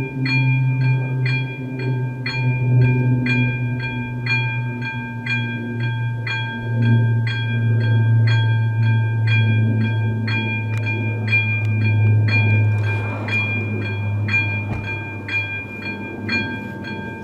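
Electronic warning bell of a level-crossing signal ringing steadily at about two strokes a second, warning of an approaching train as the barriers start to lower. Under it runs a steady low rumble.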